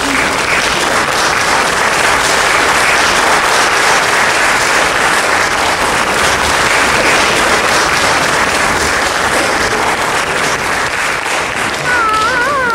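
Theatre audience applauding, a steady, loud clapping throughout. Near the end, music with a wavering melody starts under the applause.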